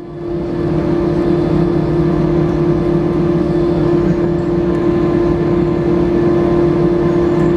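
Airbus A319 engines heard inside the passenger cabin just after landing: a steady hum with a strong held tone over an even rushing noise. The level rises in the first half-second and then stays even.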